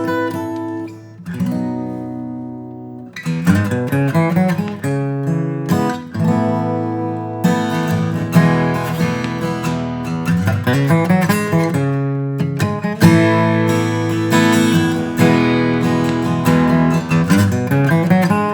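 Alvarez MG75ce acoustic guitar, with a solid cedar top and rosewood back and sides, being played. A few ringing notes come first, then fuller playing of chords and picked notes from about three seconds in.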